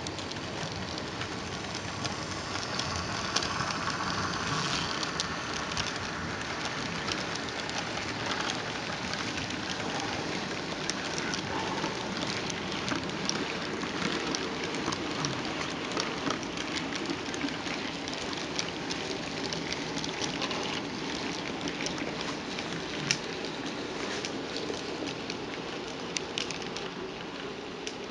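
HO-scale track cleaning train rolling along the track: a steady rolling hiss of wheels, pads and rollers on the rails, with many small irregular clicks.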